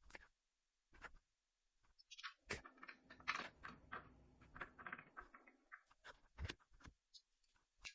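Faint clicks, taps and rattles of hands working on a fire alarm pull station, removing it and its wiring. A denser run of scraping and rattling comes in the middle, with isolated sharp clicks before and after.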